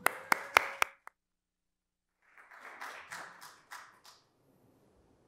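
Audience clapping: a few loud, sharp claps in the first second, then after a brief silence a round of scattered applause that dies away about four seconds in.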